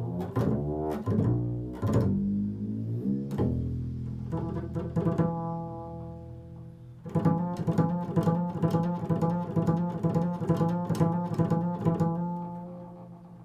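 Improvised solo music on a low-pitched string instrument: a few deep plucked notes, then a held tone, then quickly repeated notes from about seven seconds in that fade away near the end.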